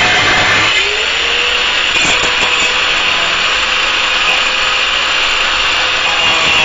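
Harbor Freight Drillmaster 4-1/2 in angle grinder with a cutoff wheel cutting into a nut. The grinding is heavy at first. Under a second in the load eases and the motor's whine climbs back up to speed, and lighter cutting carries on at a steady pitch.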